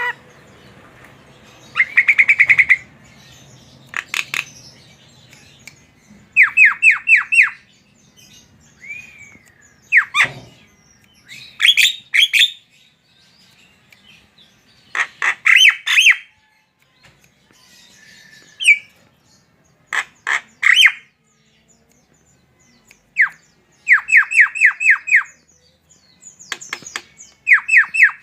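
Javan myna (jalak kebo) calling vigorously: runs of four to six quick, sharp notes repeated every few seconds, with sharp clicks and short whistled slurs in between.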